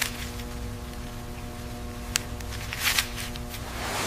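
A steady electrical-sounding hum with a few light clicks and handling noises, about two seconds in and near three seconds, as gloved hands work a rubber seal onto a machined metal fitting.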